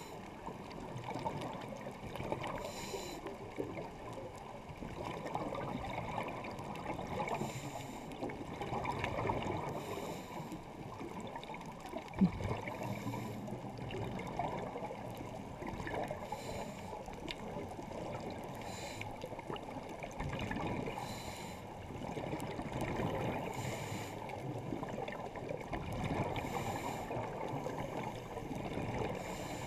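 A diver breathing through a scuba regulator underwater, heard muffled through a GoPro Hero3+ housing. A steady low rushing and bubbling noise runs throughout, with a short hiss every few seconds. One sharp click comes about twelve seconds in.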